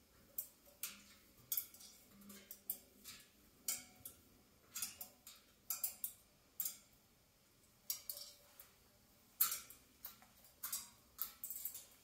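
Irregular sharp clicks and taps, one to three a second, from an Amazon parrot moving along the metal rim of its cage top.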